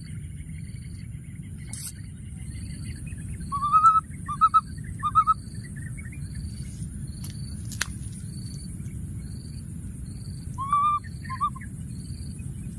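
Short, high calls that rise and fall in pitch: four in quick succession about four seconds in, then two more near the end. Under them run a steady high buzz, a soft chirp repeating every half second or so, and a low steady rumble.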